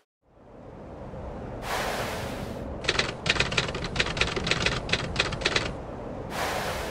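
A fast, clattering run of sharp typewriter-like clicks lasting about three seconds, set between swells of rushing noise before and after.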